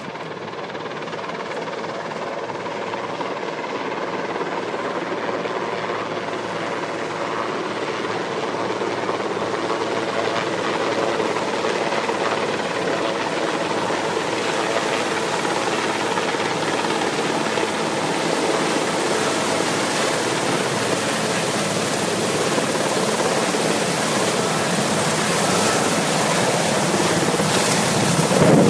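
Marine One helicopter approaching to land, its rotor and engine noise growing steadily louder as it comes in and descends.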